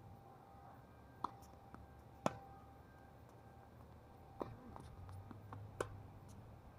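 Tennis ball impacts on a hard court: four sharp knocks spread over a few seconds, the loudest about two seconds in, over a faint low rumble.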